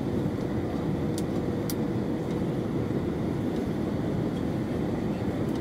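Steady cabin noise of an Airbus A321 on final approach, heard inside the passenger cabin: engines and airflow over the extended flaps make a low, even rush with a faint steady tone. Two brief ticks come a little over a second in.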